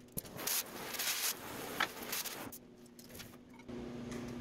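Gloved hands handling an oxy-acetylene cutting torch and setting it down: a few short scrapes and rubs, then a pause. A low steady hum comes in near the end.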